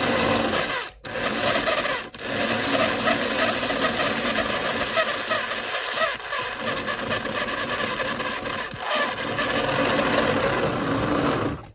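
The electric motor and gears of a 1666 toy steam locomotive run steadily with the loco held on the track, a sound that means it needs lubrication. It cuts out briefly about a second in and again at two seconds, and stops near the end.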